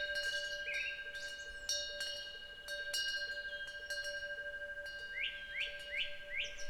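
Temple wind bell (pungyeong) ringing with a long sustained tone, its clapper striking it again several times. Birds chirp once about a second in and then in a quick run of short falling chirps near the end.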